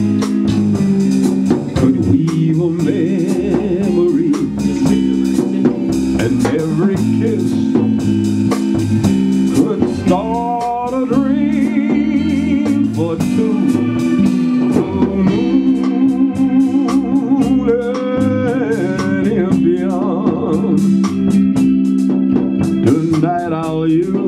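Live band playing an instrumental break: sustained electric organ chords over a drum kit, with a wavering lead melody line coming in about ten seconds in and again near twenty seconds.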